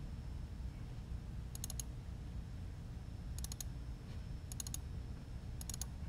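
Computer mouse button clicks in four short clusters of quick clicks, spaced one to two seconds apart, over a steady low hum.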